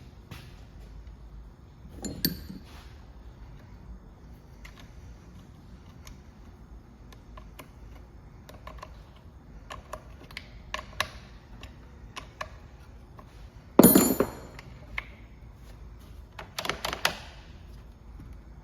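Workshop handling noises: scattered clicks and knocks of metal tools and small parts set down and moved, with a ringing metallic clank about two seconds in, the loudest clank about fourteen seconds in, and a few more knocks near the end.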